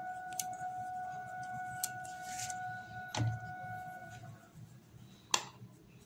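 Flour tipped from a metal measuring cup into a stainless steel bowl: a soft pour and light knocks and clicks of the cup against the bowl, a heavier knock about three seconds in and a sharp click near the end. A steady high tone is heard under it and stops about four seconds in.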